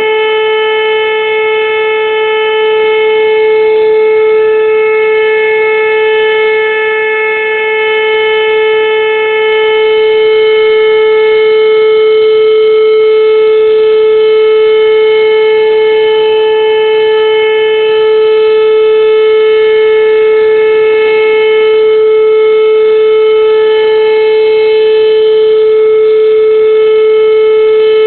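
Whelen outdoor tornado warning siren sounding a loud, steady tone that holds one pitch throughout, with slight swells in loudness.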